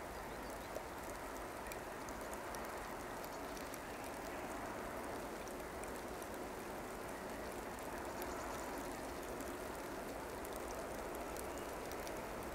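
SM42 diesel-electric shunting locomotive approaching in the distance: a steady engine drone that swells slightly, with scattered light ticks over it.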